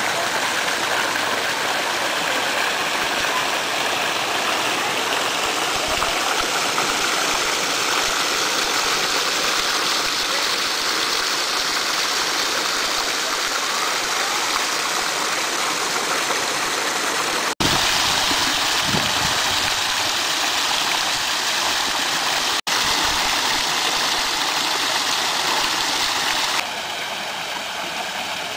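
Water pouring steadily down an artificial concrete waterfall, a continuous rushing splash. It breaks off sharply twice in the second half, and the level steps down a little near the end.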